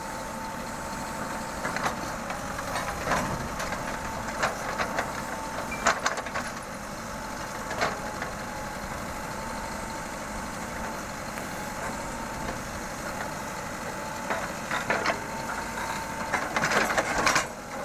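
Mahindra EarthMaster VX backhoe loader's diesel engine running steadily while the backhoe digs, with a thin steady whine over it. Repeated sharp knocks and clanks come from the bucket working through root-filled earth, several of them together near the end.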